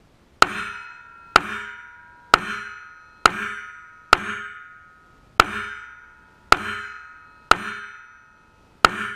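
Steel target plate hit by 9 mm pistol rounds: nine hits about a second apart, each a sharp crack followed by a ringing metallic tone that fades away.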